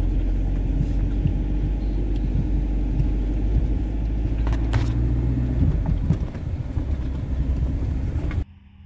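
Camper van driving slowly over beach sand, heard from inside the cab: a steady low engine-and-road rumble with a few sharp knocks and rattles about halfway through. The sound cuts off abruptly near the end.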